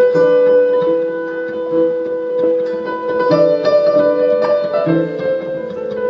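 Live jazz fusion band playing: plucked string notes and piano over a long held note, with no steady drum beat.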